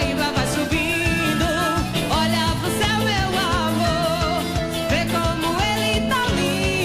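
Live forró band music: a steady bass-drum beat under a wavering melody line, perhaps with voices.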